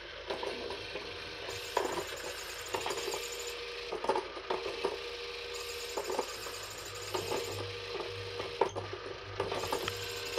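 JML Pop n Play motorised peekaboo cat toy running: a steady motor whir from inside the plastic dome, with irregular clicks and clatters as the spinning mechanism moves the toy mice past the holes.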